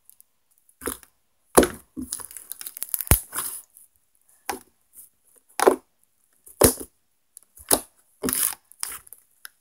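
Slime being stretched and folded by hand, giving a series of sharp snaps and squelches about once a second, the loudest about one and a half seconds in.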